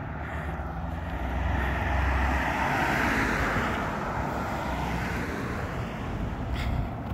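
A vehicle passing by: a rushing traffic noise that swells over the first couple of seconds and then fades away.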